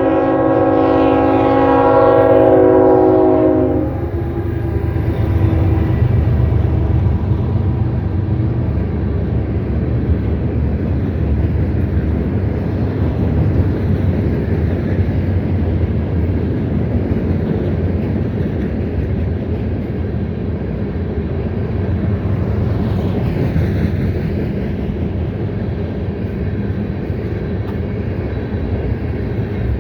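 CSX freight train's locomotive horn sounding a steady chord that cuts off about four seconds in, then the steady rumble of the locomotive and cars rolling past the grade crossing.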